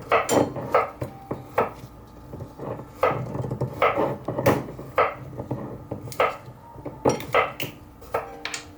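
Kitchen utensils knocking and clinking against dishes in irregular sharp taps, a couple a second, each with a short ring.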